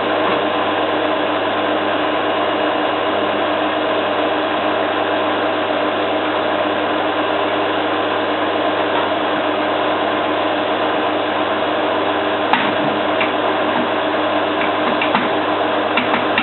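Zanussi FLA1002W washing machine spinning at a steady speed: an even motor whine and drum hum. A few sharp clicks near the end.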